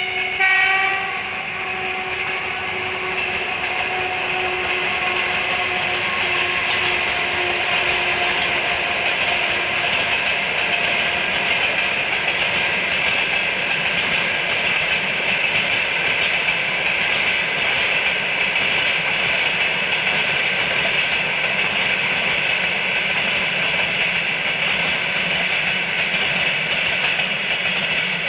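EP1P electric locomotive hauling a passenger train past: a short horn blast in the first second, then the steady rush and clickety-clack of the locomotive and carriages rolling along the rails, with a faint tone sliding slowly down and fading over the first ten seconds.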